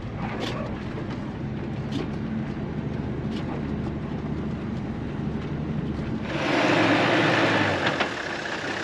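Toyota Land Cruiser HZJ79 diesel engine running as the truck drives slowly along a bush track, with a few knocks from the body over rough ground. About six seconds in, the engine rumble stops abruptly and a louder rushing hiss takes over.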